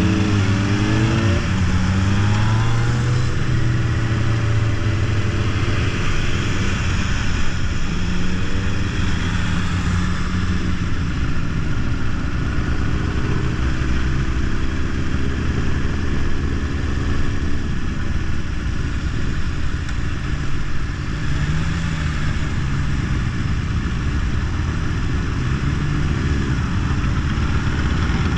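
Motorcycle engines riding in a group at town speed, their pitch rising and falling with throttle and gear changes, over steady rushing wind and road noise.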